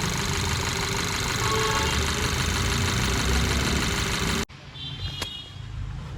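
Skoda Superb petrol engine running rough and juddering, with an uneven low beat from a cylinder 3 misfire. The sound cuts off abruptly about four and a half seconds in, leaving a much quieter background.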